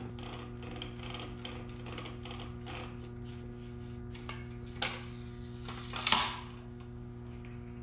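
Bulb-changing pole gripping and twisting a light bulb out of an overhead ship's light fixture: scraping and clicking of glass and the pole's grip, with a short click just before five seconds and a louder clack about six seconds in. A steady low hum runs underneath.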